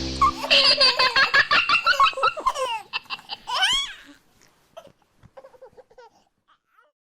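High-pitched giggling like a baby's laughter, in quick bursts of about seven a second, then a single rising-and-falling squeal near the middle. It trails off into a few faint squeaks.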